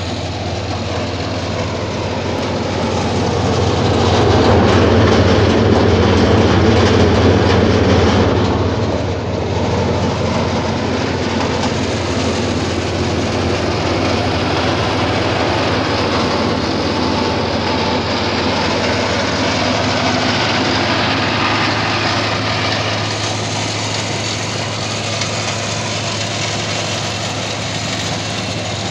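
Engine of a Timberwolf tracked wood chipper running steadily with a low hum. It gets louder for a few seconds, starting about three seconds in, then settles back.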